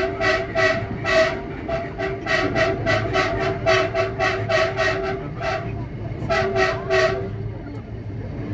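Commuter electric train's horn sounding in rapid repeated short toots, about three a second, over the low rumble of the train. The toots pause briefly near the six-second mark and stop about seven seconds in.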